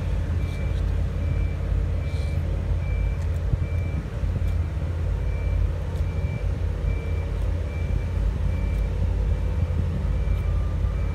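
A short high electronic beep repeats at an even pace over a steady low rumble. A second, lower beep joins near the end.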